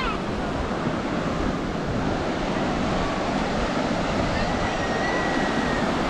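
Ocean surf breaking and washing in steadily on a sandy beach, with wind rumbling on the microphone.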